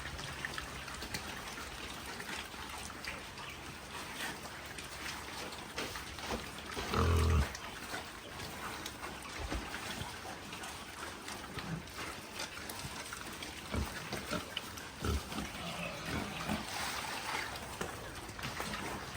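Pigs grunting, with one loud call about seven seconds in, over a steady background hiss and scattered small knocks.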